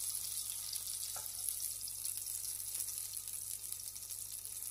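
Steady sizzle of cherry tomatoes frying in a non-stick frying pan, with a faint clink of a spoon about a second in.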